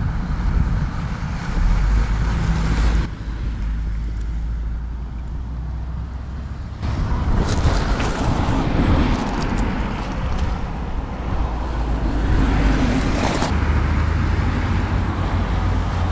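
Scale RC crawler on an all-metal MN Models D90 chassis driving over loose gravel, its tyres crunching and clicking on the stones, under a steady low rumble.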